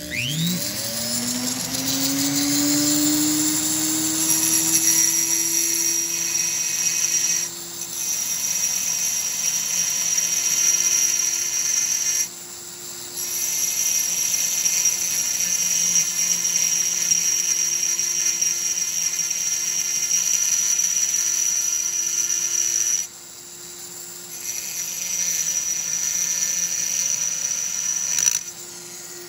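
Die grinder spinning up, then running with a steady high whine as its burr grinds the transfer ports of a Homelite Super XL-130 chainsaw cylinder. The whine drops away briefly a few times as the grinder eases off and comes back on.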